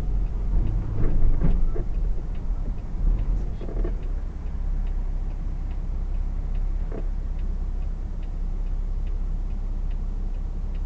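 A truck's engine is running low as the truck rolls to a stop. A turn-signal indicator clicks steadily, about every half second.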